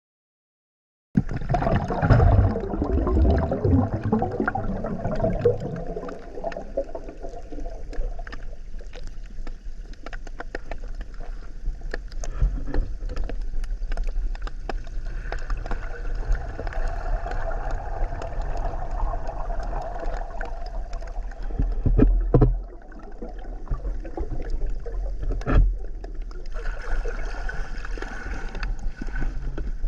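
Water and wind noise on the microphone, with a constant low rumble and scattered clicks and knocks; heavier low thumps in the first few seconds.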